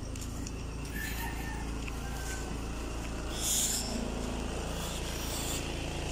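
Car engine idling steadily while warming up after a cold start, a low even hum. A brief hiss comes about three and a half seconds in.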